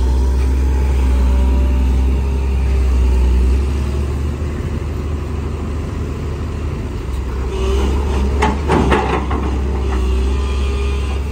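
Sunward SWE210 hydraulic excavator working under load: its diesel engine runs steadily while the hydraulic pump howls. The engine note shifts about a third of the way in, and a short burst of clattering comes about three-quarters of the way through as a bucketful of soil drops into a dump truck bed.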